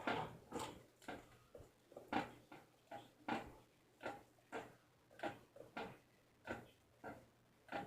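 Small bells of a homemade bell tower being struck one after another in an uneven rhythm, about two strikes a second, each a short clink that dies away quickly.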